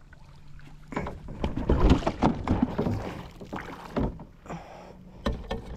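Irregular knocks and clatter on a fishing kayak's hull as gear is handled, in a cluster about one to four seconds in, with a few sharper clicks near the end.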